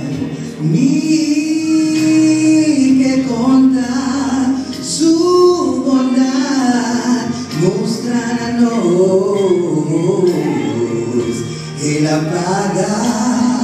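A group of men and women singing a gospel song together, holding long notes that slide between pitches.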